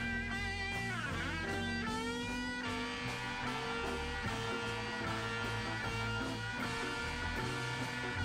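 Instrumental blues music: an electric guitar plays a lead line of held notes that bend and slide, over a bass line.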